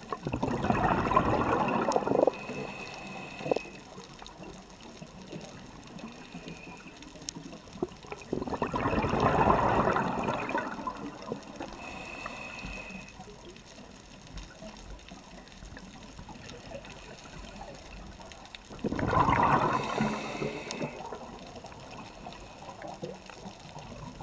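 A scuba diver breathing through a regulator underwater: three rushes of exhaled bubbles about two seconds long, roughly nine to ten seconds apart, with a thin high whistle from the regulator on the breaths in between.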